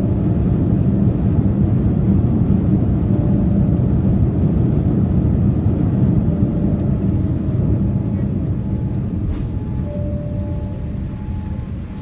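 Loud, steady low rumble in the cabin of a Boeing 787-8 Dreamliner during its landing, easing off over the last few seconds.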